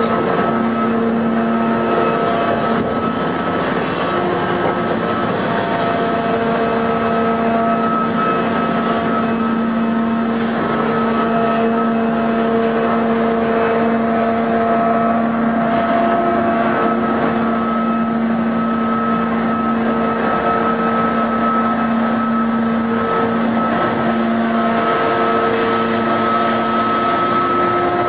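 Terex hydraulic mining shovel running steadily under load: a constant engine drone with whining tones that come and go as it digs and swings.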